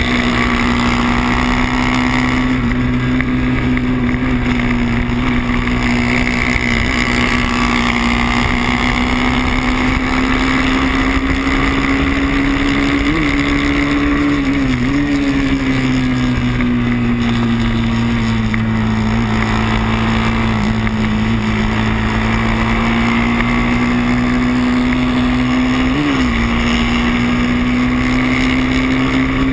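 Racing motorcycle engine held at high revs on track. Its pitch is nearly steady, climbing and easing slowly, with brief quick changes about halfway through and again near the end as gears are shifted.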